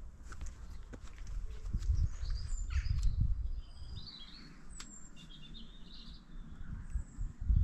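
Birds chirping in short high calls, mostly in the middle, over a low fluctuating rumble of outdoor noise.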